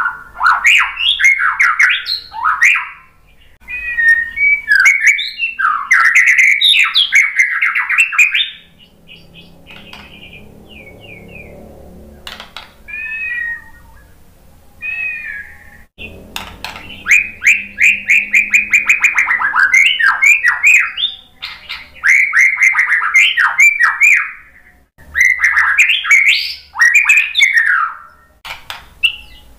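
White-rumped shama (murai batu) singing in loud bursts of rapid whistled and harsh notes, with a quieter stretch of sparse, softer calls about halfway through.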